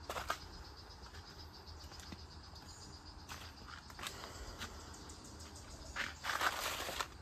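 Insects chirring steadily at a high pitch, with scattered sharp clicks and a louder rustling scuff about six seconds in.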